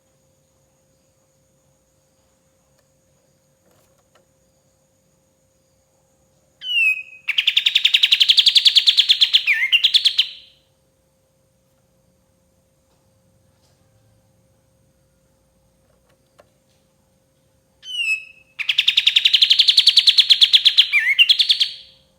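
Kapas tembak songbird singing two loud bursts, each opening with a short falling note and running into a rapid, even trill about three seconds long that twists at the end; the pause between bursts is silent but for a faint steady hum.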